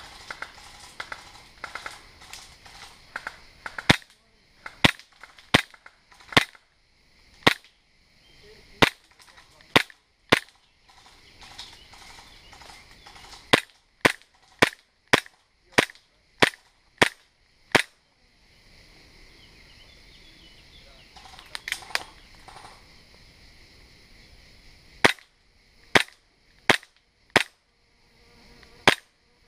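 Airsoft Glock 17 pistol firing single shots as sharp, loud cracks in three strings. The first eight come about a second apart, the next eight come quicker, about 0.6 s apart, and five more follow near the end.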